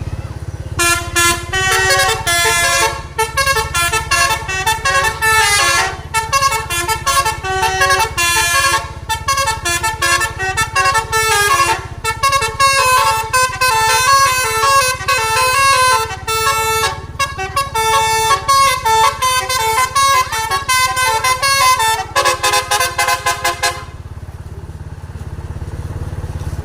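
Bus telolet horn (a Basuri multi-tone air horn) playing a fast tune of short, changing notes, over the low steady running of the bus engine. The horn starts about a second in and stops a few seconds before the end, leaving only the engine.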